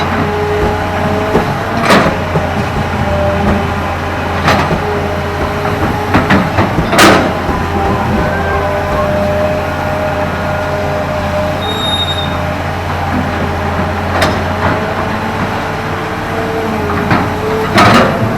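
Komatsu PC200 hydraulic excavator working: the diesel engine runs steadily under a shifting whine, with sharp knocks every few seconds, the loudest about seven seconds in.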